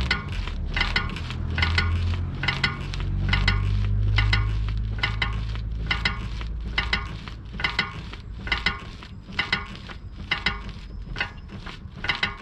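BMW E60 steering squeaking over and over as the wheel is rocked back and forth, about two short, high-pitched squeaks a second, with a low hum underneath that fades about halfway through. The cause is undiagnosed: mechanics have suspected the steering rack or the steering-shaft universal joint, and the suspension has been checked and found fine.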